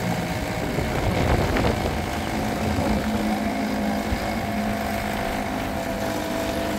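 A 1978 Johnson 2 hp two-stroke outboard motor running at a steady speed, pushing a small boat along a river.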